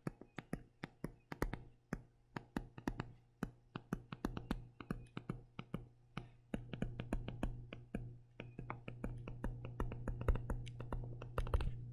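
Stylus tip tapping and clicking on a tablet screen while handwriting, several quick irregular clicks a second. A low steady hum lies underneath and grows stronger about halfway through.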